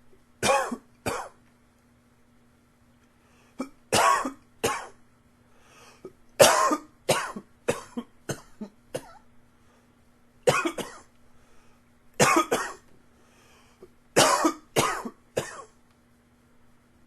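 A man coughing in repeated fits of two to five sharp coughs, the fits coming a couple of seconds apart.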